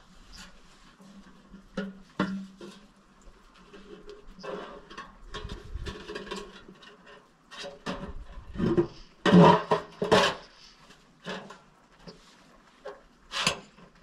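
Bent sheet-steel plate and tools being handled and fitted around a wooden post: irregular knocks, scrapes and rustles, loudest in a cluster of clanks a little past the middle, with a sharp knock near the end.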